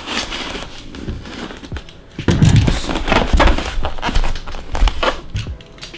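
Packaging being handled, crinkling and rustling, with a louder stretch of handling in the middle.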